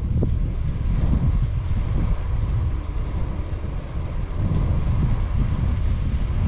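Wind buffeting the microphone while the bicycle is being ridden: a loud, fluttering low rumble that goes on without a break.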